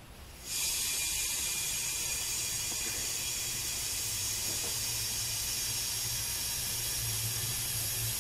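Compressed air hissing steadily into a Central Pneumatic 2½-gallon pressure paint tank as it is pressurized toward 30 psi, fed through an improvised air fitting instead of the proper attachment. The hiss starts about half a second in.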